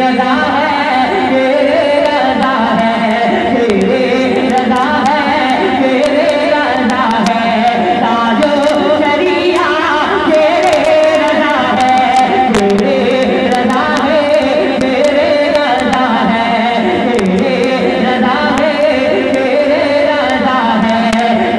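A man singing an Urdu naat into a microphone in long melodic phrases whose pitch wavers and slides.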